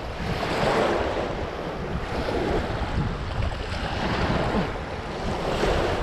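Wind-driven waves washing in a strong gusty wind, with wind rumbling on the microphone; the noise rises and falls in surges.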